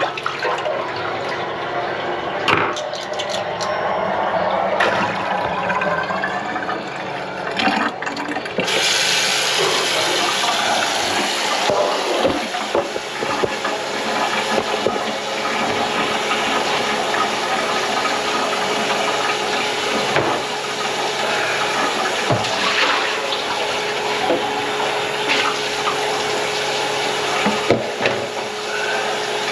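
Water running hard into the kitchen sink and down the drain, louder and fuller from about nine seconds in, with a few short knocks and a faint steady hum.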